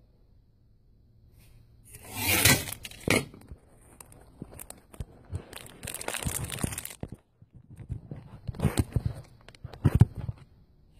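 Handling noise from a phone held against clothing: three bursts of rustling and scraping, with a few sharp knocks near the end.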